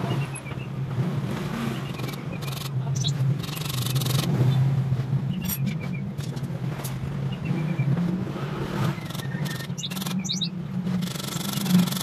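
Scattered taps, clicks and scrapes of a small hand tool working on a wooden birdcage frame with thin bars, over a steady low engine-like hum. A few bird chirps come through.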